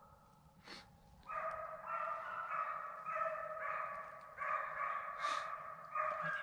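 A pack of hunting dogs baying in chorus, several voices at different pitches giving long, overlapping calls, one after another: the drive dogs in full cry as they run a deer.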